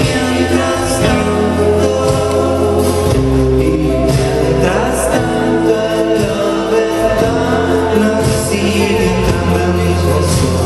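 Rock band playing live: drums, guitar and bass under sung vocals, with held chords that change every second or so.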